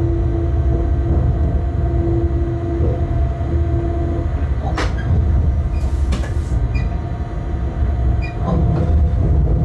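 Electric freight locomotive (Bombardier TRAXX class 186) heard from inside the cab, running with a steady low rumble and a steady whine that stops about four seconds in. After that come several sharp knocks as the wheels run over the points.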